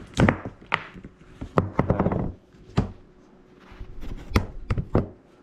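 Handling noises: an irregular run of sharp clicks and knocks with brief rustling and scraping.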